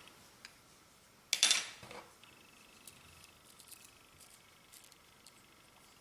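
Clear slime being worked by hand: one loud wet squish about a second in, then a scatter of faint small clicks and pops as it is pressed and folded.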